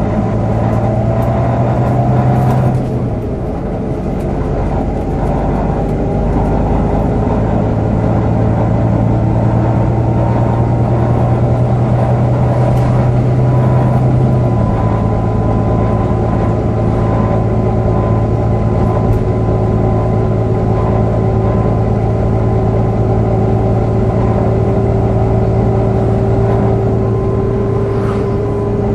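Volvo B9TL double-decker bus under way, its six-cylinder diesel running with the engine cooling fan giving a steady whine, the 'hoover' sound, that slowly creeps up in pitch. The engine note drops about three seconds in and shifts again about halfway through.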